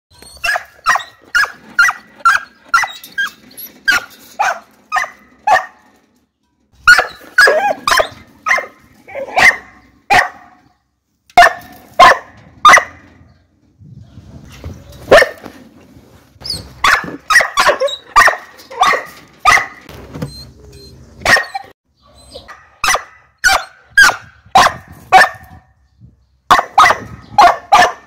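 A small dog barking sharply and high-pitched, in quick runs of about two to three barks a second with short pauses between the runs.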